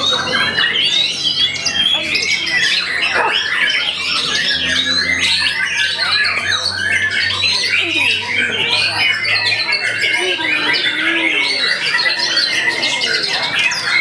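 White-rumped shama (murai batu) singing without a break: a rapid, varied run of whistled and chattering notes that swoop up and down in pitch.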